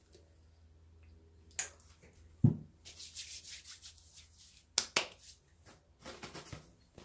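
Hands rubbing together, working in hand sanitizer, with a single dull thump about two and a half seconds in. A few sharp clicks follow near the end.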